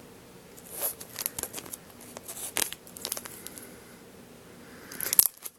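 Foil booster pack wrappers crinkling as they are handled, with scattered short crackles and a louder burst of crinkling about five seconds in.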